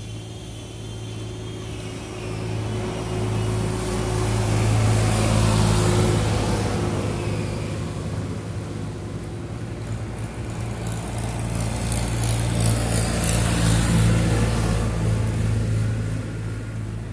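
Motor vehicle engine noise with a steady low hum, and road noise that swells and fades twice, like traffic passing by.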